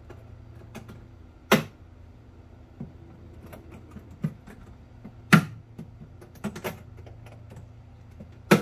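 The latching tension hooks on the bulkhead of a Pakayak Bluefin 142 sectional kayak snap shut as the hull sections are joined. There are three sharp clicks a few seconds apart, with lighter clicks and rattles between them.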